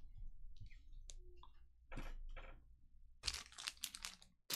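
Trading cards being handled and stacked on a tabletop mat: scattered light clicks and taps, then a busier run of short card-against-card scrapes and snaps about three seconds in as the stack is gathered up.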